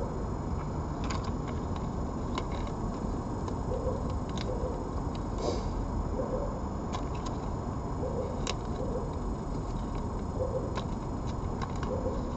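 A steady low background rumble with scattered faint clicks and ticks at irregular moments.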